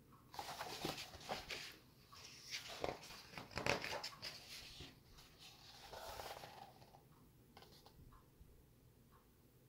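Paper rustling from a picture book being handled and its pages turned, in several bursts through the first five seconds and briefly again about six and seven and a half seconds in.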